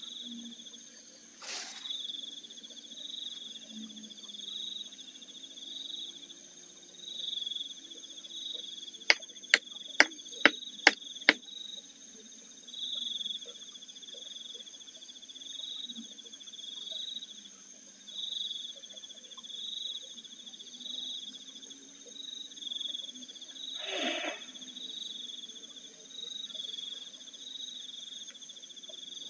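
Crickets chirping in short repeated pulses over a steady high-pitched whine. About a third of the way in, six sharp loud clicks come in quick succession, roughly two a second, and a brief rushing swell is heard near the end.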